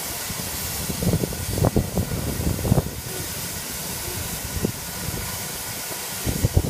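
Steady hiss of steam from LMS Ivatt Class 2 2-6-0 steam locomotive 46512, with a few irregular dull thumps, mostly from about one to three seconds in.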